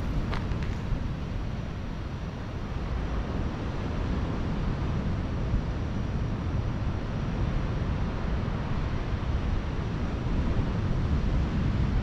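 Wind buffeting the microphone outdoors: a steady, rumbling noise with no distinct events.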